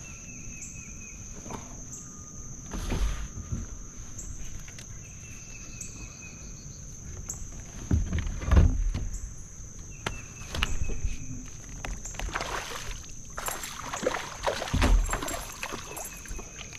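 Irregular thumps and knocks against a fishing kayak's hull as gear is handled, the loudest about eight and a half seconds in, over a steady high-pitched insect buzz.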